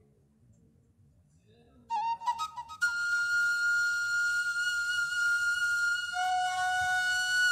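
Flute music starting about two seconds in: a few short notes, then one long held high note, with a lower held note joining about six seconds in.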